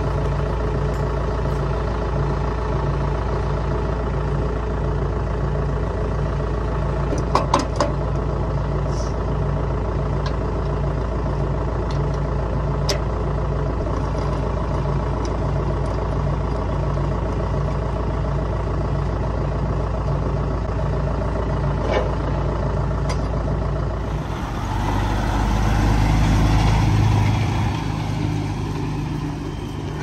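A diesel engine idling steadily, with a few sharp metal clinks from hitch and hose work at the back of a tractor. About 24 seconds in, a truck's diesel engine takes over, swelling louder with road noise as a flatbed truck pulls in, then easing off near the end.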